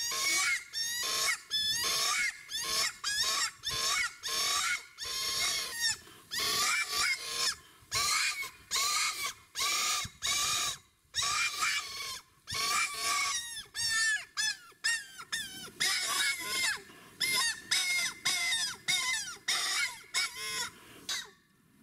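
Predator call sounding a shrill prey-distress squeal to call in coyotes. The squeals repeat about twice a second with short breaks and cut off suddenly near the end.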